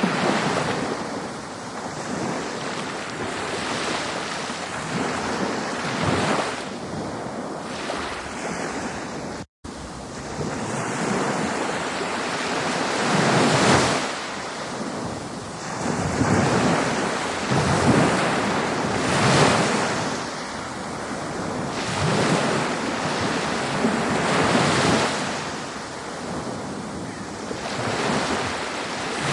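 Ocean waves breaking and washing ashore, the surf swelling and falling back every few seconds. The sound cuts out completely for a split second about nine seconds in.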